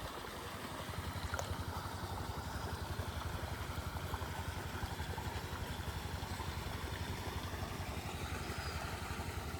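A small engine running steadily nearby, a rapid, even low putter with no change in speed.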